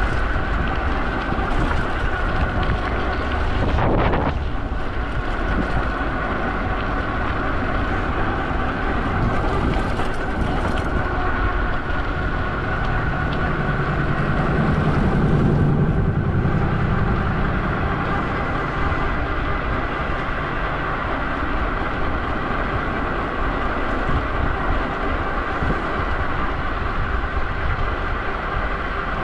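Steady vehicle running noise: a low rumble with a held whine of several tones. There is a single knock about four seconds in, and a deeper hum swells and fades in the middle.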